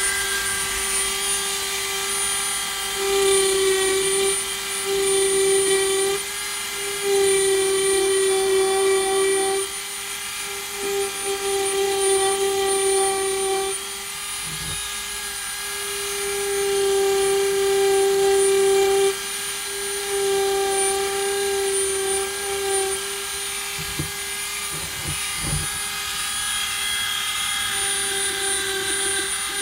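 Dremel rotary tool spinning at speed setting 25 while its bit engraves weathered, cracked wood: a steady high-pitched whine that swells louder and eases off every few seconds as the bit works.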